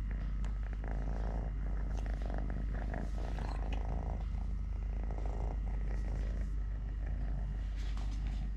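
Kitten purring steadily, with a few short clicks now and then.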